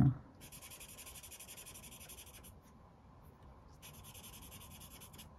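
Brush-tip marker rubbed back and forth on paper in two spells of about two seconds each, faint and scratchy, as yellow is worked over a Prussian blue swatch to blend the colours.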